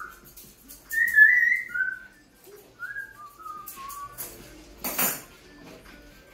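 A person whistling a short tune of gliding notes for about the first four seconds, over faint snips of grooming scissors. A brief noisy burst comes about five seconds in.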